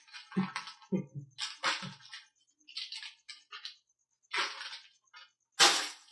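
Plastic parts bags and packaging crinkling and rustling in short, irregular bursts as parts are handled, the loudest rustle a little before the end.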